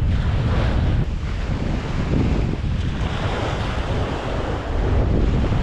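Wind buffeting the camera microphone in a steady low rumble, over the sound of open water around the boat.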